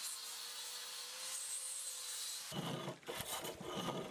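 Hand plane shaving freshly patched-in timber on a wooden beam. It comes in about two and a half seconds in as three rasping strokes with short breaks between them.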